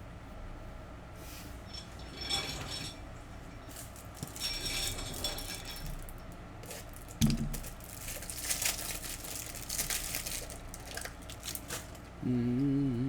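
Trading cards and their plastic wrappers and holders being handled: short bursts of crinkling and clicking, with a single sharp knock about seven seconds in. A voice briefly hums or speaks near the end.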